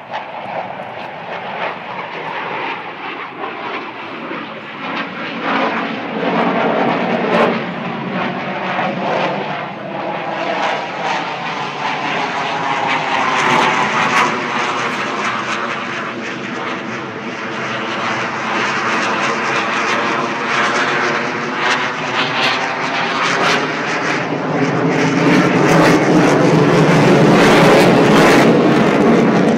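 Jet aircraft flying overhead: a long, loud rush of engine noise with a sweeping, phasing tone, building to its loudest near the end.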